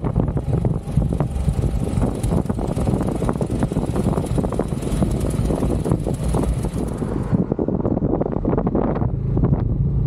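Yamaha XMAX 300 scooter's single-cylinder engine running steadily under way, with wind rushing over the microphone. The wind noise eases about seven seconds in, leaving the engine hum clearer.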